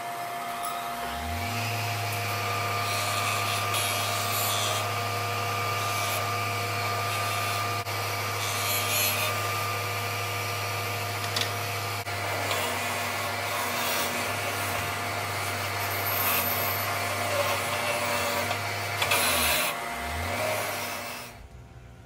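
Bench grinder's electric motor spinning up with a rising hum, then running steadily while the end of a steel rod is ground against the wheel, a rasping hiss that swells and eases as the rod is pressed and moved. The motor hum dips and picks up again shortly before the sound cuts off abruptly near the end.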